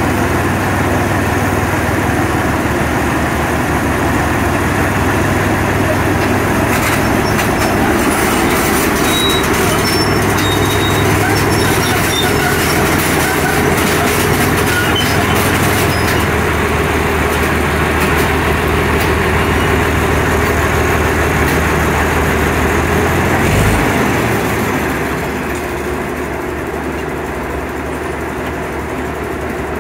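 Crawler crane's diesel engine running steadily, then easing down to a lower idle about 24 seconds in. Scattered light metallic clinks in the middle.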